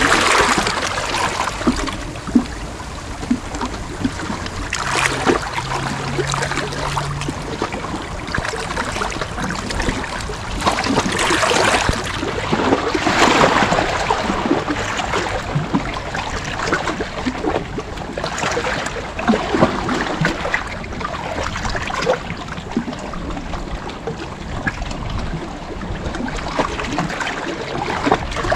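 Sea water washing and lapping at the shore. Swells rise and fall several times, with the loudest around the middle.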